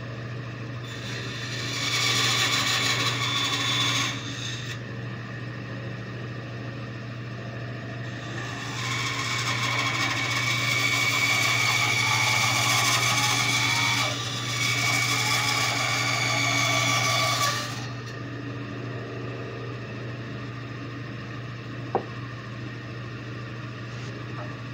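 Bandsaw running steadily, its blade cutting a wooden carving blank in two stretches: a short cut about two seconds in and a longer one from about nine to seventeen seconds in, broken briefly near the middle. Between the cuts the saw runs with no load.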